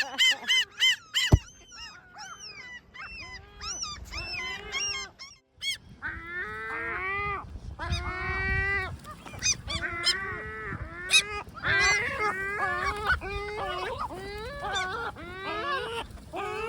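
Great black-backed gulls calling: a steady run of short, arched, nasal calls, one after another. There is a brief pause around five seconds in, and the calling grows busier after it. A single sharp knock sounds just over a second in.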